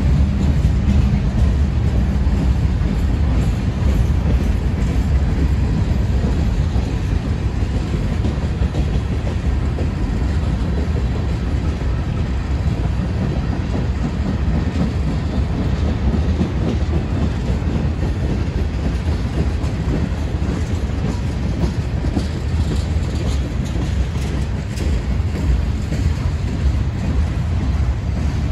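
Norfolk Southern freight train rolling steadily past at close range, with a continuous heavy rumble and steel wheels clicking over the rail joints.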